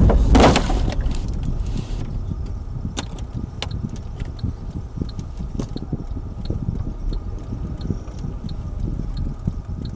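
Road and engine noise inside a moving car as it slows, after a loud burst of noise in the first second. From about five seconds in, a faint regular ticking comes about twice a second.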